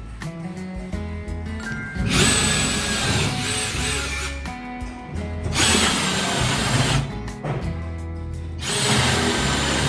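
A power tool runs in three bursts, about two seconds in, in the middle, and near the end, each with a high whine. Background music plays throughout.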